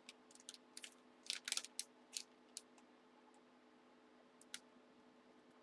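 Faint, scattered light clicks and taps, bunched in the first three seconds with one more near the end, over a steady low hum.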